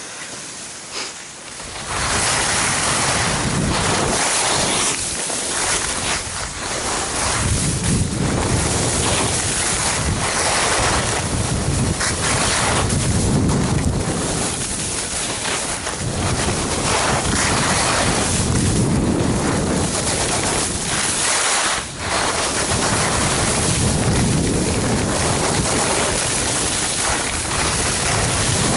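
Wind rushing over the microphone of a camera worn by a skier going downhill, with the hiss and scrape of skis on packed snow swelling and fading every couple of seconds as the turns go by. Quieter for about the first two seconds, then loud.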